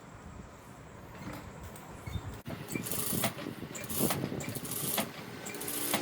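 Sewing machine starting up about two and a half seconds in and running unevenly in spurts as it stitches a quarter-inch seam around a blouse neckline.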